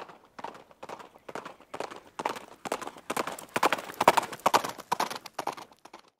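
Rhythmic clip-clop steps like hoofbeats, a regular beat of about two a second that grows louder toward the middle and stops abruptly near the end.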